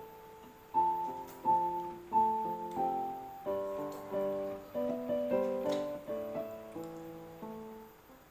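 Background piano music: a melody of chords struck in a steady, even rhythm.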